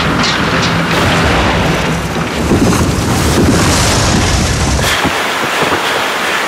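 Storm and flood sound effects: a dense rush of water and wind with deep rumbling booms, the low rumble dropping away about five seconds in.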